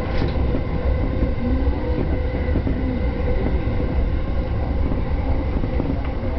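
JR Yamanote Line electric commuter train running on the track, heard from inside the car: a steady low rumble of wheels and running gear with a faint, steady electric whine.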